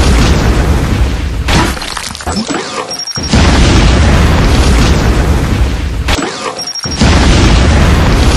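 Explosion sound effects: one heavy boom dying away, then two more hitting suddenly a few seconds apart, each with a deep rumble that slowly fades.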